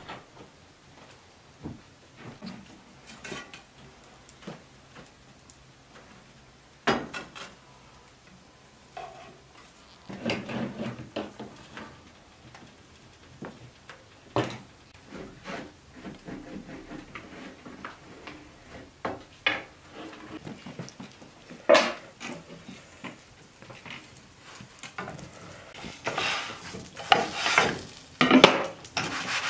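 Metal spoon scraping and clinking against a steel bowl while spreading meat topping on dough, then lahmacun frying in a steel pan on a wood-burning stove, with scattered clicks and knocks of utensils and pan. Harsher scraping comes near the end.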